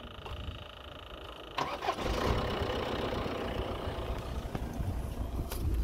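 Audi 2.0 TDI BRE four-cylinder diesel engine cranking and catching about one and a half seconds in, then running at idle. A steady high whine is heard before it starts.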